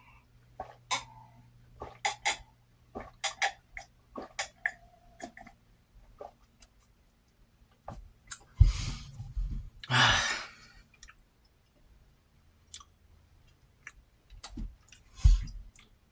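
Close-miked mouth sounds of a person eating and drinking: a run of sharp lip smacks and tongue clicks, then two loud breathy rushes of air about nine and ten seconds in, and a short low burst near the end.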